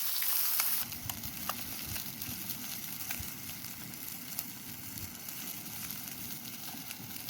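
Trout frying in a pan, a steady sizzle with scattered small pops. The sizzle is louder for about the first second, then settles.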